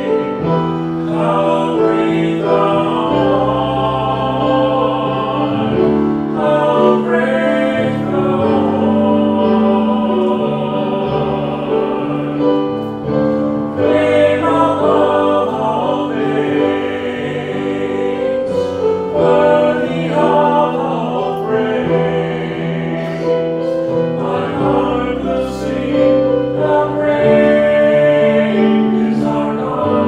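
Two men singing a duet, with held sung notes that change pitch phrase by phrase.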